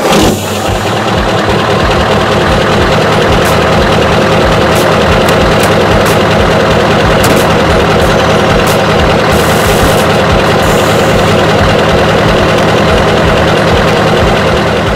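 Truck engine idling steadily, with an even low rumbling pulse.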